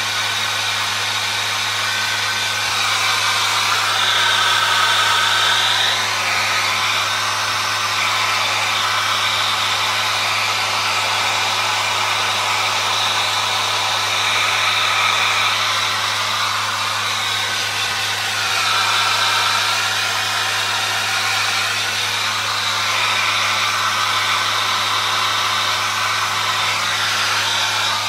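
Handheld hair dryer running steadily, a loud blowing hiss over a constant motor hum, drying a protein treatment into the hair. The tone of the airflow shifts a few times as the dryer is moved about, notably a few seconds in and again about two-thirds through.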